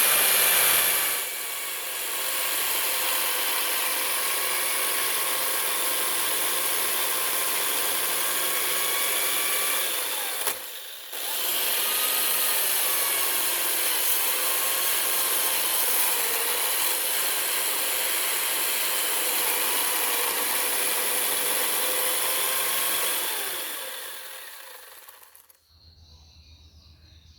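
A power tool cutting and working wood, running steadily with its pitch shifting under load. It breaks off for a moment about ten seconds in, then winds down and stops a few seconds before the end.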